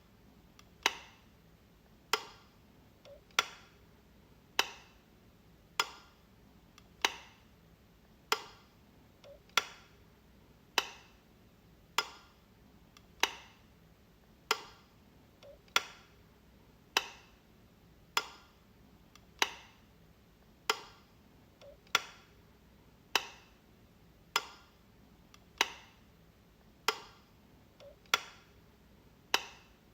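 Light switch being flipped over and over, one sharp click about every 1.2 seconds in a steady rhythm.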